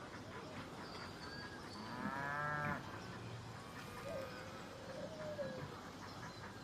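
A cow moos once, briefly, about two seconds in, over faint outdoor background noise.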